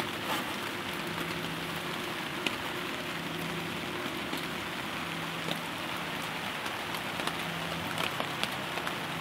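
Steady rain falling, heard from inside a shelter, with a few faint ticks.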